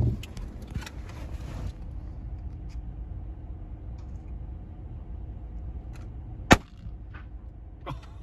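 A single shot from a scoped hunting rifle, one sharp crack about six and a half seconds in, with a low steady rumble underneath.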